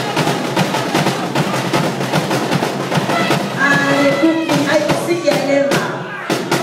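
Fast, steady drumming accompanying a Tongan kailao war dance, with voices calling out in held tones over the beat from about halfway.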